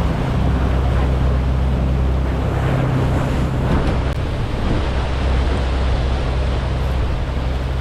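Fishing boat's engine running at a steady trolling speed, a constant low drone under the rush of water along the hull and wind on the microphone.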